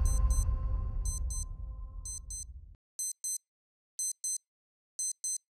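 Wristwatch alarm beeping in pairs of short high beeps, about one pair a second. Under the first beeps the deep tail of an intro music sting dies away, cutting off a little under three seconds in.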